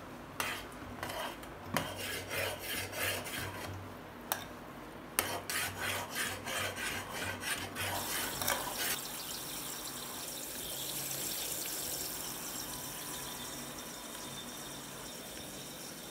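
A spoon stirring and scraping frothy milk cream heating in a metal pot for ghee, in quick, even strokes with a few sharp clinks. The stirring stops about nine seconds in, leaving a steady hiss.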